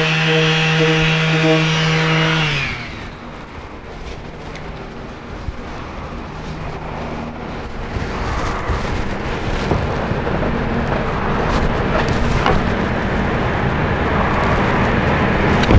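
Cordless Makita 18V orbital sander running steadily against a fibreglass centerboard patch, then switched off about two and a half seconds in and spinning down. After that comes quieter, even background noise with a few light knocks.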